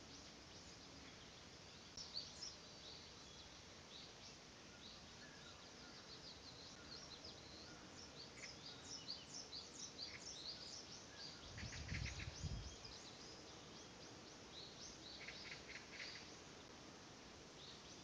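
Faint chorus of small songbirds, many short high chirps and calls overlapping, busiest through the middle. A brief low rumble about two-thirds of the way through is the loudest moment.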